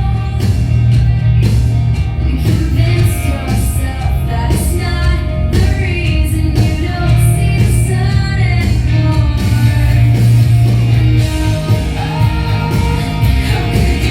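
A rock song with a sung vocal line over a heavy, steady bass and a full band, playing loud.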